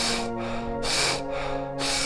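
Recorded human breathing for paced breathwork: deep, rhythmic in-and-out breaths at about one breath a second. Underneath is a sustained synth-pad music drone that shifts chord about a second in.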